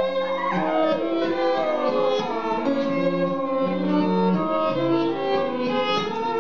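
Freely improvised contemporary music for violin, Roland RD-64 digital piano and acoustic guitar: the violin slides down and up in pitch over held piano and guitar notes.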